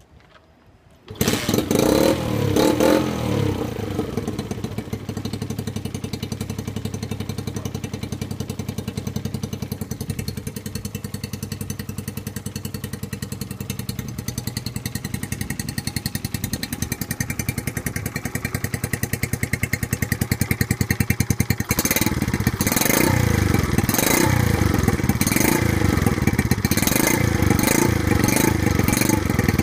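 Honda Dax single-cylinder four-stroke engine breathing through a short exhaust pipe with a silencer: it starts about a second in, settles into a steady pulsing idle, and from about two-thirds of the way through is blipped repeatedly, each rev rising and dropping back.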